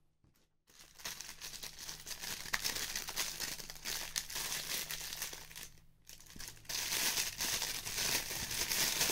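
Clear plastic bag crinkling as hands unwrap a wristwatch from it, in two long stretches with a short pause about six seconds in.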